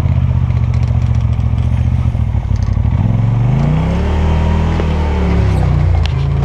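Polaris RZR Turbo side-by-side's turbocharged engine running steadily, then revving up about three seconds in, its pitch rising and then swinging up and down with the throttle.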